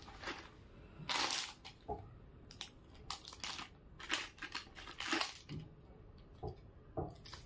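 Plastic wrapping crinkling and rustling in a series of short bursts, with a longer rustle about a second in, as small jewellery packets are handled.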